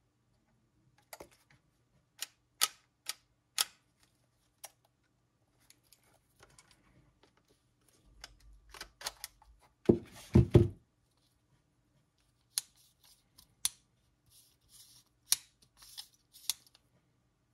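Sharp mechanical clicks from a Kiev-15 TEE SLR camera and its Helios-81 Automat lens as the dials and lens rings are turned and the lens is worked off its mount, with a louder cluster of knocks about ten seconds in.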